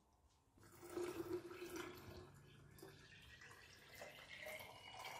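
Water poured from a glass bottle into a glass pitcher of plum juice, heard faintly in two stretches: about a second in and again near the end.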